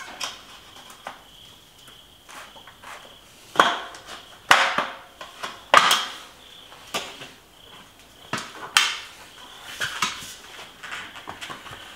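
Schwalbe G-One RS 700x40c gravel tire being worked by hand onto a bicycle wheel rim. Irregular clicks, knocks and rubbing of the tire against the rim, with a few sharper knocks between about three and six seconds in and again near nine seconds.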